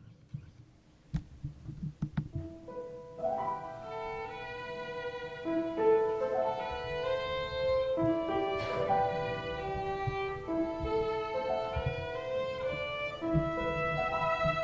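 Solo violin starting a slow melody about three seconds in, after a few sharp clicks at the start. Irregular low tapping runs underneath the playing.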